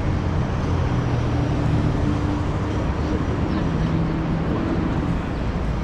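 Steady street traffic noise, a low rumble with a vehicle engine's hum that shifts in pitch a couple of times.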